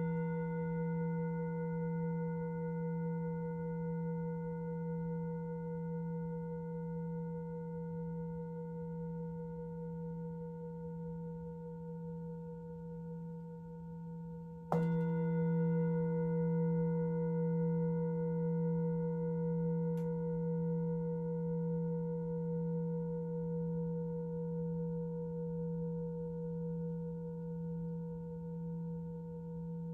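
Singing bowl ringing with a low hum and several higher overtones, slowly fading; it is struck again about halfway through and rings on the same way.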